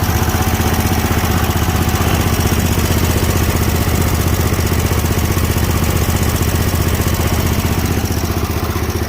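Snapper Pro zero-turn lawn mower engine running steadily, with an even firing rhythm and no surging or dying down, after a Sea Foam fuel treatment for a partly clogged carburetor.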